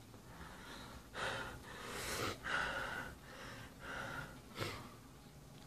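A man's shaky, gasping breaths as he fights back tears: about five audible breaths in and out, a second or less apart.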